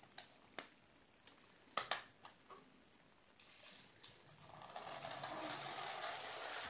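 A few sharp plastic clicks and knocks as a plastic toy puppy on wheels is handled on a tiled floor, then, a little over four seconds in, a steady whirr as the toy runs off across the tiles, cut off abruptly at the end.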